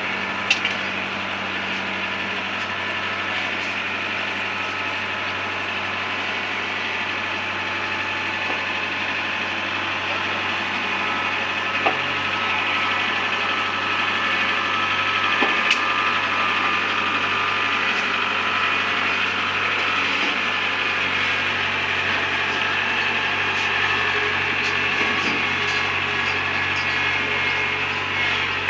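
Combine harvester running: a steady engine drone under a constant machinery whir, with a few sharp clicks. It gets slightly louder about halfway through.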